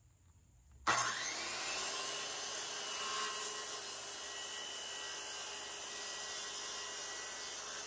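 Handheld circular saw starting up about a second in and running steadily, cutting through a wooden board.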